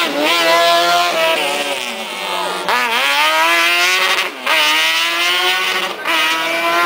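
Small race-prepared cars, a Ford Ka and a Fiat 600, accelerating hard out of a corner: the engine note climbs steadily in pitch, drops briefly at each upshift, about three times, and climbs again.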